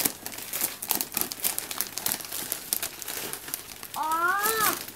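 Shiny gift wrap being crinkled and torn open by hand, a steady run of crackling rustles. Near the end a short voice-like call rises and falls in pitch.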